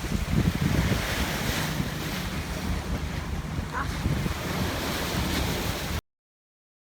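Strong wind buffeting the microphone: a steady rushing with choppy low rumble from the gusts. It cuts off suddenly about six seconds in.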